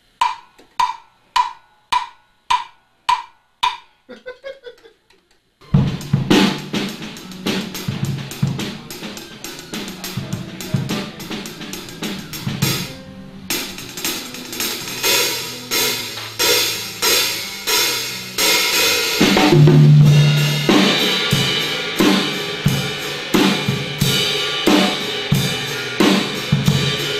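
A count-in of about seven evenly spaced sharp clicks, then a live drum kit with snare, hi-hats and cymbals comes in with a bass line, playing an instrumental hip-hop groove.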